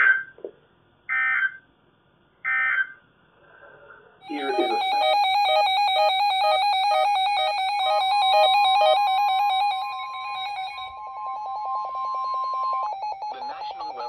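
Weather radio alert: three short data bursts of the SAME header, then a loud, rapidly pulsing multi-tone receiver alarm. The steady 1050 Hz NOAA warning tone sounds under the alarm for about five seconds and cuts off near the end, as the voice of the warning message starts.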